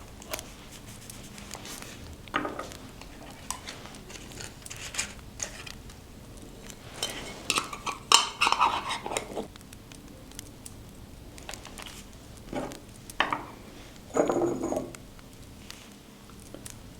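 Scrapbooking tools and materials handled on a desk: irregular taps, clicks and light clinks, busiest about halfway through.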